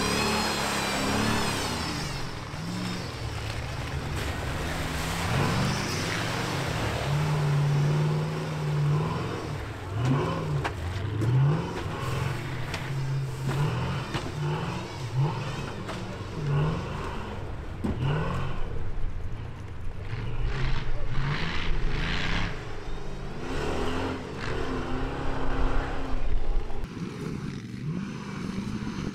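Off-road race truck engines revving hard again and again, the pitch rising and falling with each throttle stab, as the trucks push through mud and over rock and dirt berms.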